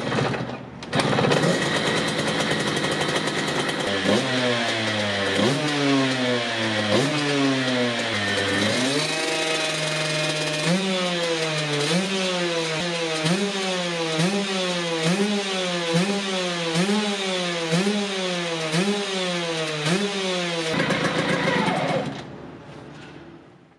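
1990 KTM GS 125's single-cylinder two-stroke engine running on its stand, the throttle blipped again and again in quick rising revs, about one a second, with one longer held rev partway through. It fades away near the end.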